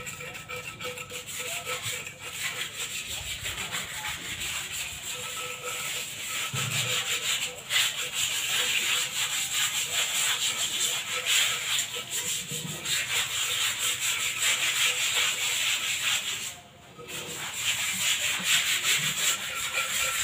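Rapid, scratchy hand scrubbing on the rough surface of cement planter pots, cleaning them, with several strokes overlapping and a brief pause about seventeen seconds in.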